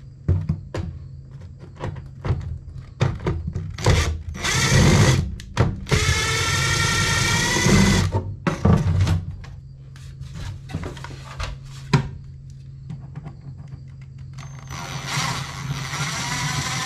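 Cordless drill driver running in short bursts to back out sheet-metal screws. The longest run lasts about two seconds, with another near the end, between clicks and knocks of handling, over a steady low hum.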